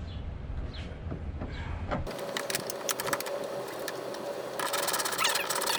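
Cordless impact wrench running the 10 mm bolts of a hood strut bracket down, starting abruptly about two seconds in with fast hammering, then a second, louder run near the end.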